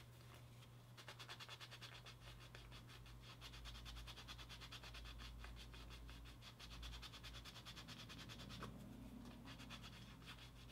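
Rapid dry scratching strokes as the cut edge of a small vegetable-tanned leather piece is rubbed back and forth by hand. It starts about a second in and stops near the end.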